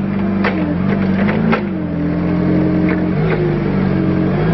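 Hyster S50XM propane (LP) forklift engine running as the truck drives and turns, its pitch dipping and rising a little with the throttle, with a few short sharp clicks over it.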